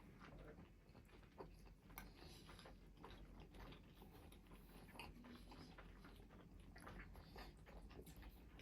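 Faint chewing and biting: soft, irregular wet clicks and smacks of people eating, over a low room hum.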